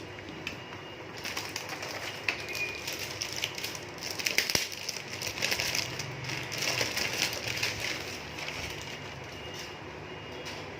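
Irregular clicks, scrapes and rattles of a screwdriver pushing the front drive-bay cover out of a computer case from the inside.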